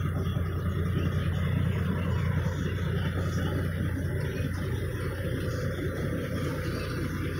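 Caterpillar C13 diesel engine of a Kenworth T800 dump truck idling steadily, a constant low hum heard from inside the cab.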